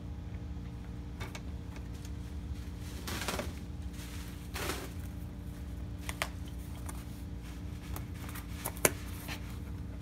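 Handling sounds of a picture frame being assembled: a mounted shirt board and a cardboard backing are slid and pressed into a wooden frame, giving two short rubbing scrapes and then several light clicks and knocks, the sharpest near the end, over a steady low hum.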